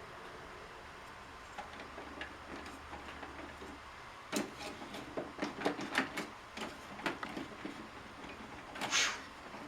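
Plastic housing parts of a Keurig coffee maker being handled and worked loose during disassembly. A quiet stretch, then scattered clicks and knocks from about four seconds in, and a short louder scrape near the end.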